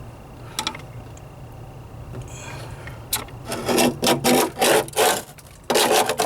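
A scribe scratching a line into the rusted sheet-metal floor pan of a 1998 Ford Ranger, marking out the patch to be cut. One short scratch comes early, then from about halfway through a run of quick back-and-forth scraping strokes, about three a second, and one more stroke near the end.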